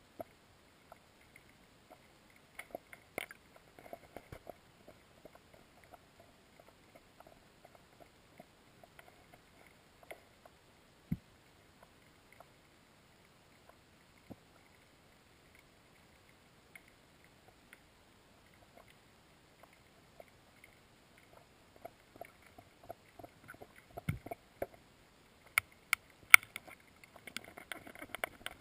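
Muffled underwater sound heard through a camera housing: faint, scattered clicks and knocks, one dull thump about a third of the way in, and a run of sharper clicks near the end.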